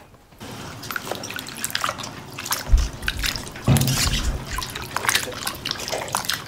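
Water dripping and trickling in many small patters, with two low thumps near the middle.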